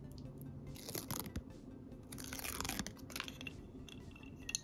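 Faint rustling and crinkling of tiny paper stickers being peeled from their backing and handled with metal tweezers, in two soft swishes, with a few light ticks near the end.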